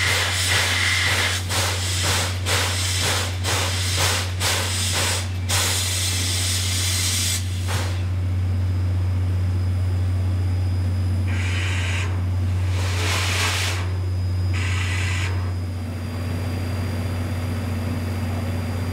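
C56 steam locomotive chuffing, about two exhaust beats a second for the first five seconds, then a long hiss of steam and three short blasts of steam later on, all over a steady low hum.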